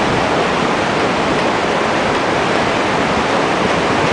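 Steady rush of fast-flowing water in high flow, an even noise with no breaks.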